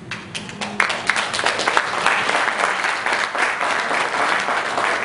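Audience applause: a few claps at first, swelling to full, steady clapping about a second in.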